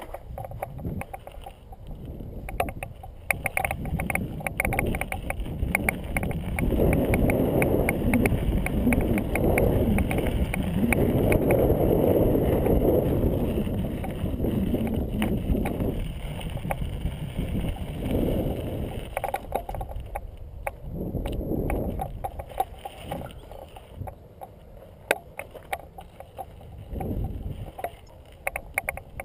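Wind buffeting the microphone of a pole-mounted action camera, swelling and fading in gusts and loudest midway, over a downhill mountain bike running across rough, rocky ground, with many short clicks and rattles from the bike.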